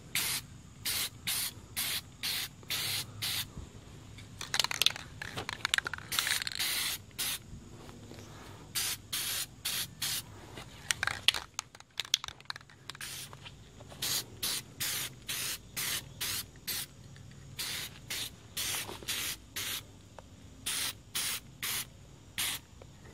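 Aerosol spray-paint can sprayed in short hissing bursts, mostly two or three a second, with a few longer ones and brief pauses, laying down light coats.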